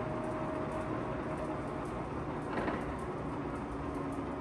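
LeBlond sliding bed engine lathe running with its large chuck spinning: a steady mechanical whir from the geared headstock with a faint steady tone, and a brief louder noise about two and a half seconds in.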